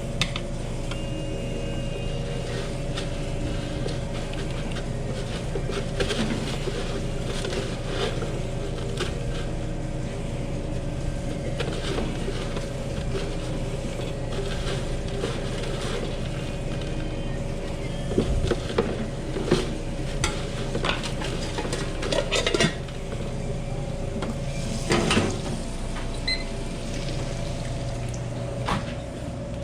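Ramen bowls, pots and utensils clattering and clinking in scattered knocks as a bowl is assembled, a few louder clanks past the middle, over a steady hum.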